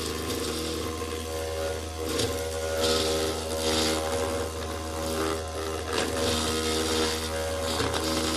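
Homemade motor-driven plastic cutter running with a steady hum, its spinning bit grinding into a plastic sheet in several rough bursts.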